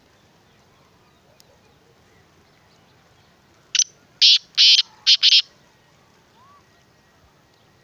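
Black francolin calling: five short harsh notes in quick succession, about four seconds in, the whole call lasting under two seconds.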